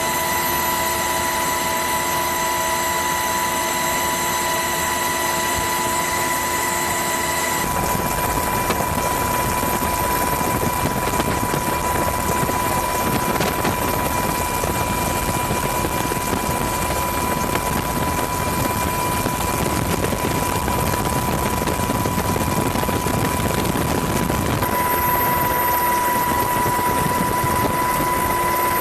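Helicopter engine and rotor noise heard from inside the cabin: a steady drone with a high, even whine over it. The mix of tones changes abruptly about eight seconds in and again near the end.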